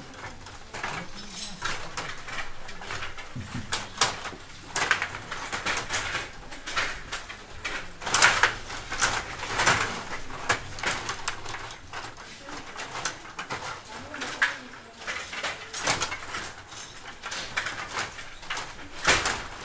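Stiga rod hockey game in fast play: an irregular clatter of sharp clicks and knocks as the control rods are pushed, pulled and spun and the plastic players strike the puck. The clatter is thickest about midway through.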